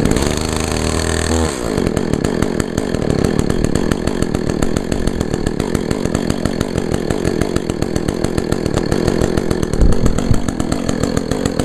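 Echo CS-400 chainsaw's 40.2 cc two-stroke engine on a cold start, just taken off choke: it catches on a pull of the recoil starter, runs fast for about a second and a half, then its revs drop to a steady idle. A brief thump near the end.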